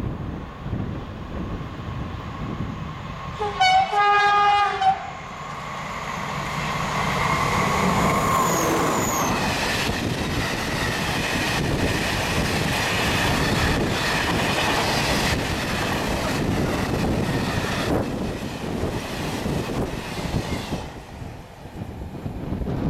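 A freight train of MA100 hopper wagons hauled by a Vossloh G1206 diesel locomotive passes. There is one horn blast about four seconds in, and the locomotive's engine grows louder and drops in pitch as it goes by. Then a long run of wagon wheels clatters over the rail joints until it stops about 21 seconds in.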